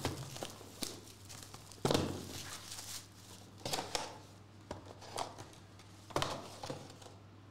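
Plastic shrink-wrap crinkling and tearing as it is peeled off a small cardboard trading-card box, then the box's cardboard flap being opened, in a few separate sharp rustles, the loudest about two seconds in.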